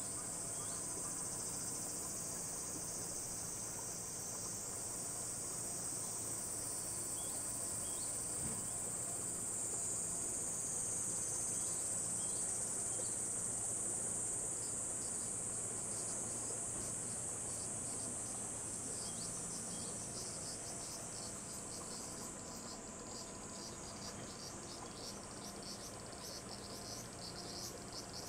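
A steady, high-pitched insect chorus. About two-thirds of the way in it turns into a fast pulsing trill.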